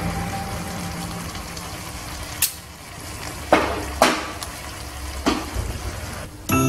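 Marinated beef slices sizzling in a pan over medium heat, with a utensil knocking sharply against the pan four times as the beef is stirred.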